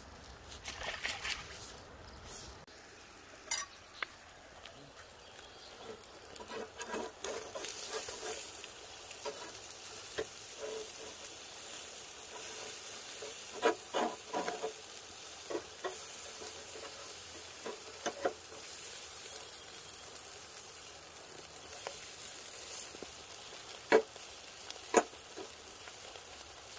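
Stuffed whole trout sizzling over lump charcoal on a small grill. Metal tongs and a spatula click and knock against the grate as the fish is turned, a cluster of them midway and two sharp knocks near the end.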